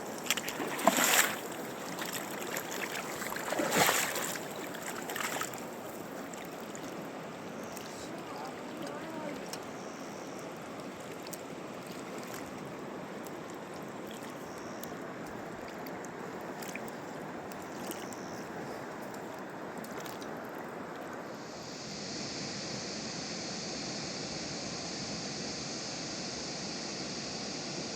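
Rushing mountain river water, a steady rush, with a few loud sudden sounds in the first five seconds. About 22 seconds in the rush turns brighter and hissier.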